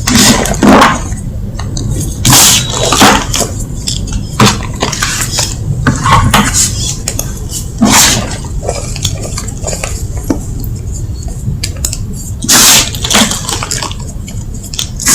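Refreshed gym chalk being crunched and crumbled in irregular sharp, crisp crunches, one every second or few.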